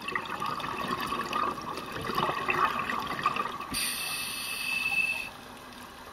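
Scuba diver breathing through a regulator underwater: the bubbles of an exhale gurgle for about three and a half seconds, then a steady hissing inhale lasts about a second and a half before it quietens.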